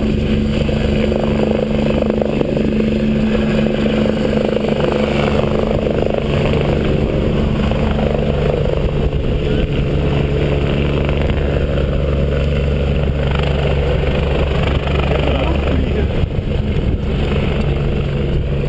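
Medical helicopter running on the snow with its rotor turning: a loud, steady engine drone with several steady pitched tones and no rise in pitch.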